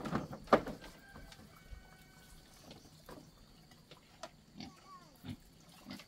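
Domestic pigs grunting, with a loud burst about half a second in and quieter short grunts after.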